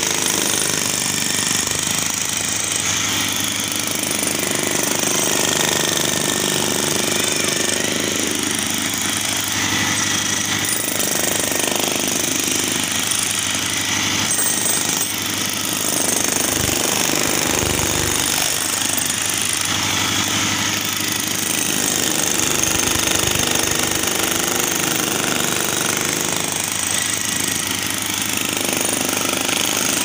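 Two corded DeWalt electric demolition hammers breaking up concrete at the same time: steady, unbroken hammering of the chisel bits into the slab.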